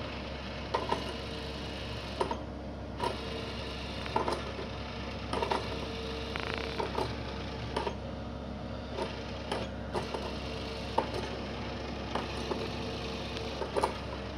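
Battery-powered Pop n Play motorised cat toy running with its sound effects switched off: a steady small-motor whir from inside the plastic dome, with irregular light clicks and taps every second or so.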